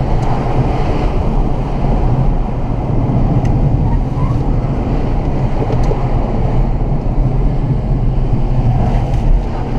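Cabin noise of a Mercedes-Benz CLA250 under way: a steady low rumble of tyres and engine.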